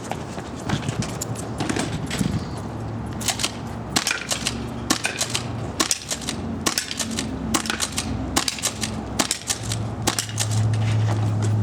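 Airsoft guns firing a run of sharp, irregularly spaced shots, mixed with the ticks and clanks of pellets hitting metal targets. A low steady hum comes in near the end.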